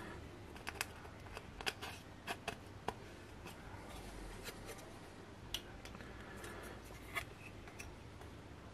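Faint, irregular small clicks and ticks of wire-lead resistors being handled and pushed into a circuit board's holes, several in a quick cluster at first and a few scattered later.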